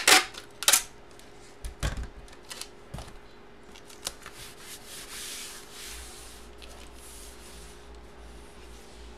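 Large 16x20 photo packs being handled: several sharp taps and knocks in the first three seconds, then a couple of seconds of paper sliding and rubbing as the packs are shifted over one another.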